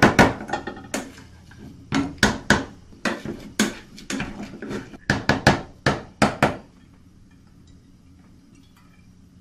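Plastic potato masher pounding boiled potatoes in a stainless steel saucepan, its head knocking on the metal pot in an irregular run of knocks, two or three a second, that stops about six and a half seconds in.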